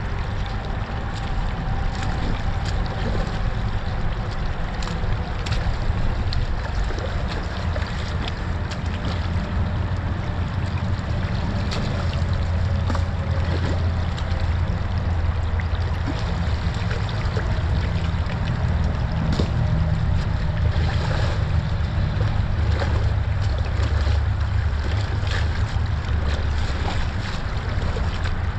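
Shallow creek water running over stones and debris, with wind rumbling on the microphone. In the second half, short splashes of boots wading through the water.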